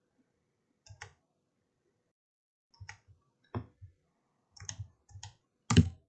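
Sharp clicks of a computer mouse and keyboard, in small irregular clusters, the loudest just before the end.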